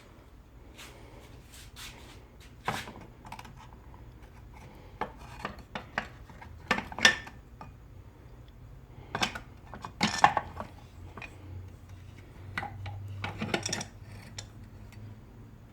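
Irregular clicks, light knocks and rubbing of metal parts and hand tools being handled, with the sharpest clinks about seven and ten seconds in and a short rattle near the end.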